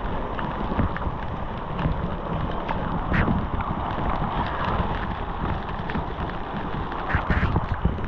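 Steady rush of a large waterfall, with wind buffeting the microphone and scattered sharp knocks and clicks, a quick cluster of them near the end.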